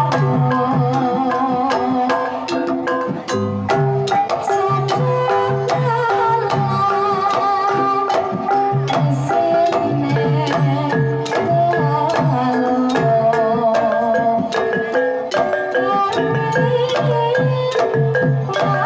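Banyumasan gamelan playing a tayub gending: kendang hand drums beat a steady rhythm over struck saron metallophones and gongs, with a female sinden singing along.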